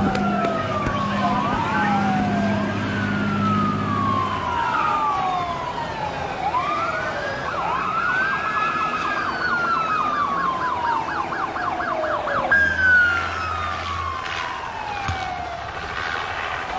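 Police car sirens wailing, several overlapping, each rising and then slowly falling. About eight seconds in, one switches to a fast yelp for a couple of seconds before going back to the wail.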